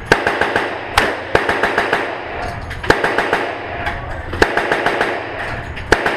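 Gunfire on an indoor shooting range, echoing off the lane walls: five loud single shots one to two seconds apart, with quick volleys of rapid, fainter shots between them.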